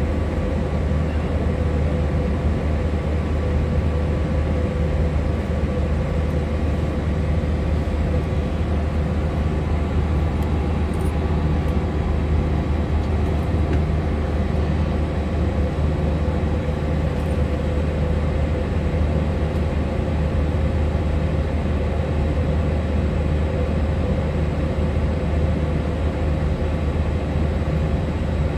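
Steady low drone inside a parked airliner's cabin, with a faint steady hum higher up.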